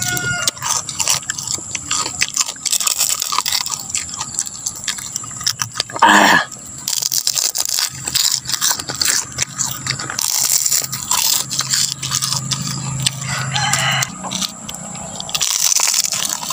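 Crisp crunching as two people bite into and chew puffed beef chicharon (fried beef skin cracklings), with many small cracks and crackles. A brief louder sound stands out about six seconds in.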